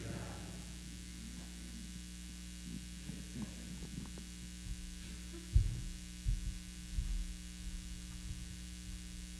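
Steady electrical hum from the church sound system, with several short low thumps from a handheld microphone being handled, the loudest about five and a half seconds in.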